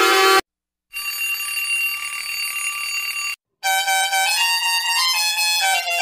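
A series of digitally altered ship's horn sound effects. One cuts off early, and after a short silence comes a steady, buzzy, high horn tone for about two and a half seconds. After another brief gap, a horn tone steps up and down in pitch like a short tune.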